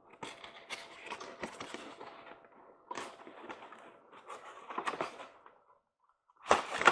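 Rustling, scraping and light clicking as a K-Line O-27 covered hopper car is handled and taken out of its box, with a louder rustle near the end.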